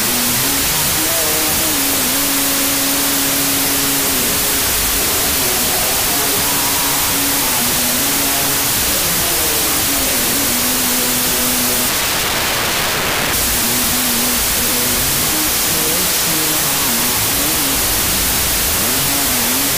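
Music with a slow, stepping melody line, heard under a loud, steady hiss of noise, with a brief swell of hiss about twelve seconds in.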